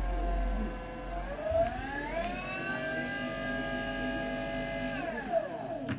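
Brushless DC motor spinning on a freshly repaired 72 V 1000 W controller, making a steady whine. The whine rises in pitch as the throttle is opened, holds, then falls away near the end as the motor spins down. The repaired controller is driving the motor smoothly.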